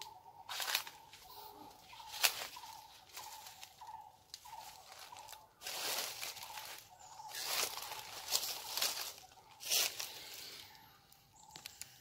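Dry leaf litter crunching in irregular bursts under footsteps on a forest floor. Behind it, a short call repeats about twice a second.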